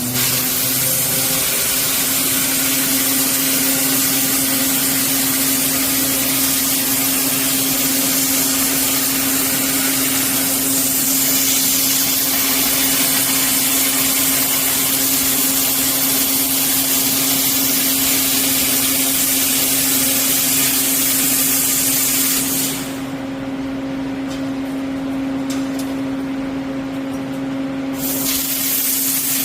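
CHUTIAN band saw cutting through a 400x400 steel H-beam: a steady low machine tone under a loud, bright hiss of the blade working through the steel. About 23 seconds in the hiss drops away for around five seconds, then comes back.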